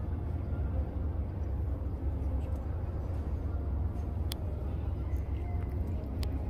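Steady low outdoor rumble of distant train and city background, with a few faint sharp clicks about four and six seconds in.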